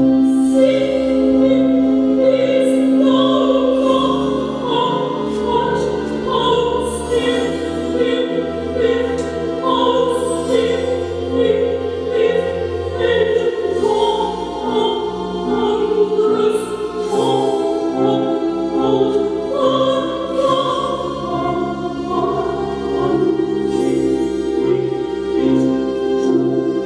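Music: operatic choral singing, long held notes that change pitch every second or two.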